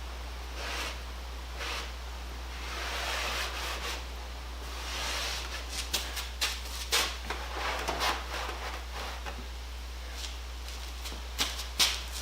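Brush scrubbing the wooden carpenter's tool box to clear off dirt and cobwebs: short scratchy strokes at first, then a longer stretch of rubbing, then a series of light knocks and clicks from about halfway through.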